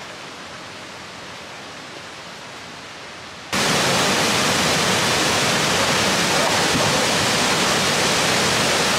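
The steady rushing roar of the Falls of Falloch waterfall cuts in suddenly about three and a half seconds in, much louder than the quieter, even hiss that comes before it.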